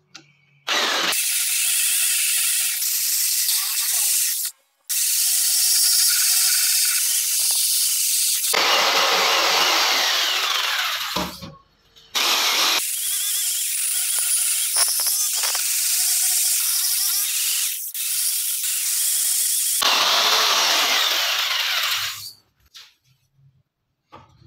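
Power jigsaw cutting a curved notch out of a clamped pine board, a loud, high-pitched buzz. It runs in three long stretches, stopping briefly about four and a half seconds in and again about eleven and a half seconds in, and stops for good about twenty-two seconds in.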